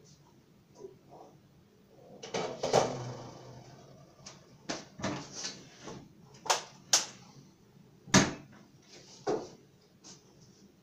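Kitchen wall cupboard door opened and shut amid the knocks and clatter of things being handled: a rattling clatter about two seconds in, then a run of sharp knocks, the loudest about eight seconds in.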